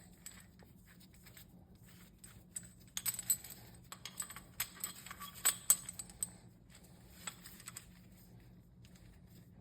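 Light metal clinks and clicks of a steel bearing splitter and tools being handled and set up on a supercharger snout shaft, thickest in the middle of the stretch.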